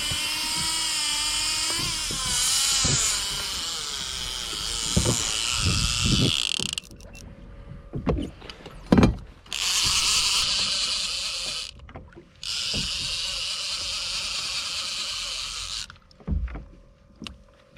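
Fishing reel drag screaming as a hooked wahoo (ono) runs and strips line, in three long runs with short pauses between. Several sharp knocks in the pauses, the loudest about nine seconds in.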